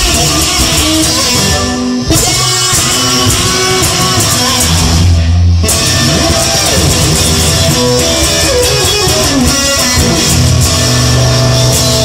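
Instrumental rock passage: electric guitar playing held notes over a bass line, with sliding notes partway through.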